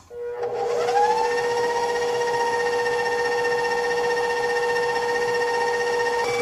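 Stand mixer motor starting up, its whine rising in pitch over the first second, then running steadily while the paddle beats an egg into an almond cream of creamed butter, sugar and almond powder. Near the end the pitch steps up a little.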